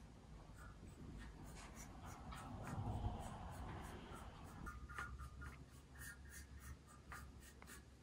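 A paintbrush dabbing and brushing white paint onto a wire mirror frame laid on newspaper: faint scratchy strokes and light taps, with a louder handling bump about three seconds in.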